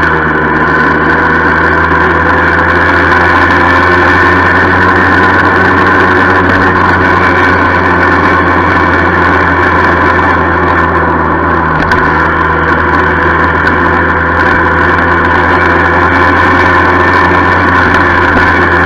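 1976 Yamaha FS-1 moped's 50 cc two-stroke single-cylinder engine running at a steady pitch under way, with a rattle over the engine note.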